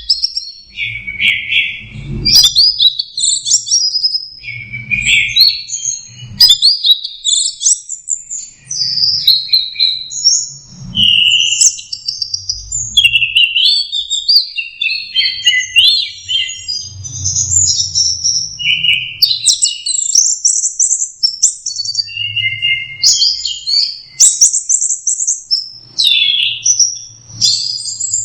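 Orange-headed thrush (anis merah) singing a fast, unbroken, varied song of short high chirps and whistled phrases that change every fraction of a second, in the style bird keepers call 'teler'.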